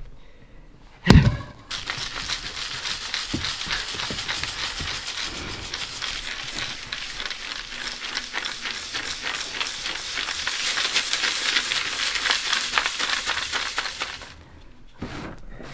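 A long wooden club strikes dry clay earth once, about a second in, with a heavy thud that breaks up the lumps. Then dry clay earth runs through a wooden-framed sieve for about twelve seconds as a dense crackle of falling grains, which stops shortly before the end.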